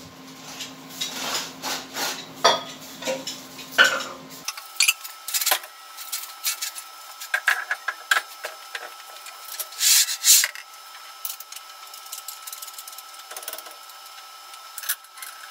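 Metal parts being handled: irregular sharp clinks and knocks with scraping between them, the loudest a pair of knocks about ten seconds in, over a faint steady hum.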